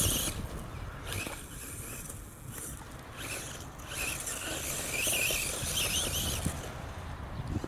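RC monster truck's motor and drivetrain whining in bursts, the pitch rising and falling as the throttle is worked, with a longer run of whine from about four seconds in. Tyres scrabble over loose gravel underneath.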